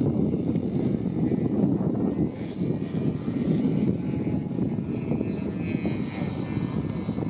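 Lazer 25cc petrol engine of a large scale Chipmunk radio-control model plane running steadily in flight, with propeller drone.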